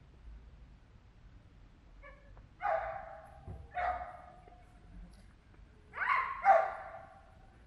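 A dog barking four times: two single barks about a second apart, then a quick double bark, the loudest, near the end.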